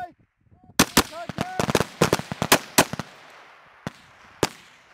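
Rifle fire: a quick, irregular string of about a dozen shots, then two single shots spaced about half a second apart near the end, each followed by an echo that rolls away.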